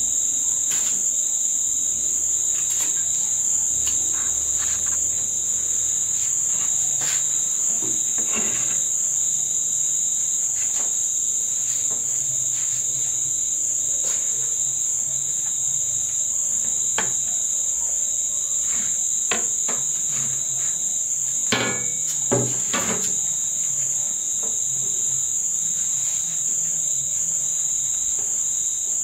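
Crickets chirring in a steady, unbroken high-pitched drone. Scattered light knocks sound over it, with a few louder knocks about three-quarters of the way through.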